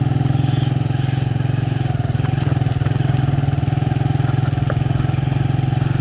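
Motorcycle engine running at a steady, even pace as it is ridden along.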